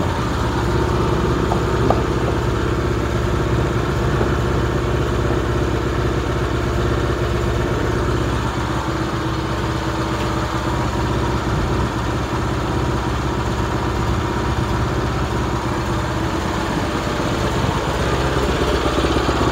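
Small four-stroke Kubota engine of a walk-behind reaper-binder running steadily at a constant speed, with no revving.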